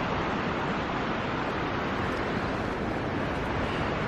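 Steady rushing noise of wind and rain in a rainstorm, with wind buffeting the microphone.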